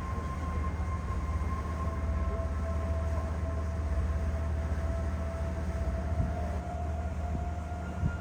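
Steady low engine rumble of a tour boat under way, heard on board, with a faint steady whine coming in about two seconds in.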